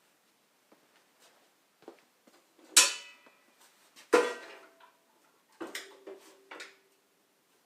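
Metal tools and parts being handled and set down: two sharp ringing metallic clanks about three and four seconds in, followed by a few lighter clinks and knocks.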